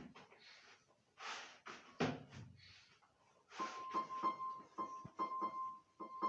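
Electronic keyboard sounding one high note again and again, about two presses a second, after a few knocks in the first three seconds. The keys are being tested after their rubber contacts were touched up with pencil graphite, and the notes show that they now work.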